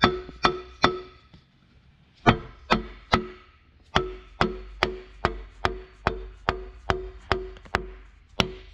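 Rubber mallet tapping a wet cylinder liner down into a John Deere 6.8 L PowerTech diesel block, driving it past its O-rings until it seats. There are some seventeen sharp knocks, about two to three a second, with a pause of about a second after the first three. Each knock leaves a short ringing note.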